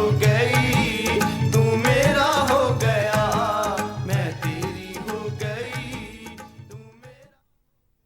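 South Asian pop song with a singer over a steady, repeating bass beat, fading out and ending about seven seconds in.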